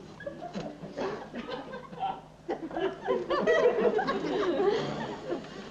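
Theatre audience laughing, a ripple that swells about two and a half seconds in.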